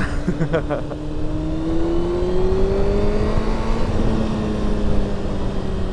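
Sports motorcycle's engine pulling up through the revs as the bike accelerates, its note rising for a couple of seconds and then holding steady, with wind rushing over the helmet microphone.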